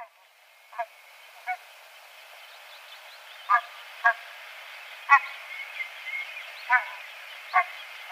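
Canada geese honking: about eight short, separate honks at uneven intervals.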